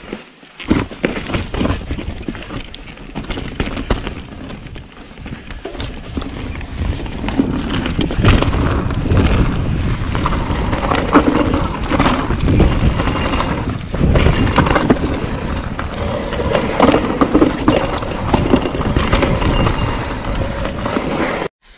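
Downhill mountain bike riding a rocky dirt trail: the tyres roll and crunch over dirt and stone, the bike clatters over bumps, and wind rushes over the on-bike microphone. It grows louder and faster about seven or eight seconds in, and cuts off suddenly near the end.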